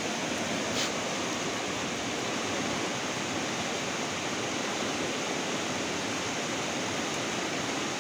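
Fast-flowing river water rushing steadily, with one brief click a little under a second in.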